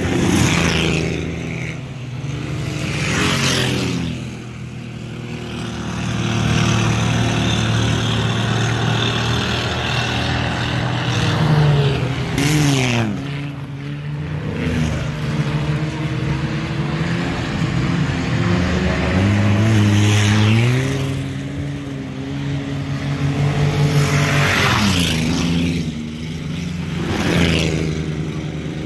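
Four-cylinder enduro race cars on a dirt oval, their engines revving up and down through the turns. Several times a car passes close by with a loud rush.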